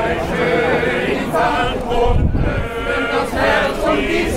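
Male voice choir singing unaccompanied in parts, the men's voices holding and moving between sustained notes.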